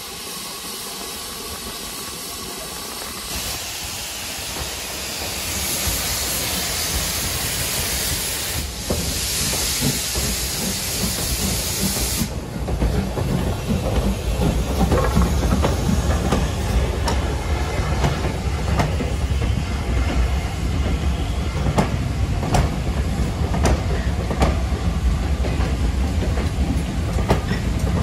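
Steam locomotive letting off steam with a steady hiss that cuts off suddenly about twelve seconds in. Then a steam train rolls past with a low rumble and its wheels clacking over rail joints.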